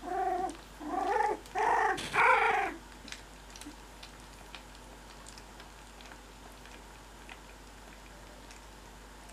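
A very young cocker spaniel puppy crying: four short, high cries in quick succession over the first three seconds, each louder than the last. After that there are only faint small ticks of the litter shuffling.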